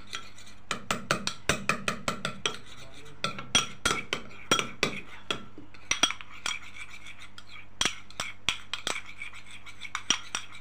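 A spoon stirring a thick paste in a small bowl, clinking and scraping against the bowl's sides in quick, irregular taps, with a couple of brief pauses.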